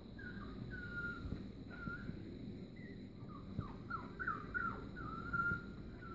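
Puppies whining: a string of high-pitched whimpers, some dropping in pitch and some held briefly on one note.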